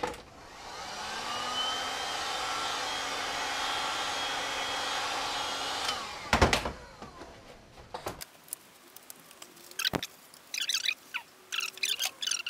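Handheld hot-air heat gun run to soften PVC foam board for bending: the fan spins up with a rising whine, blows steadily for about six seconds, then stops, followed by a couple of sharp knocks and later light tapping and handling clicks.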